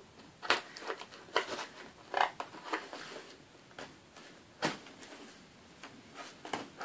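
A cardboard parcel sealed with lots of sellotape being cut and picked open with a knife and scissors: irregular scrapes, rustles and small knocks, with a sharper click about two-thirds of the way through.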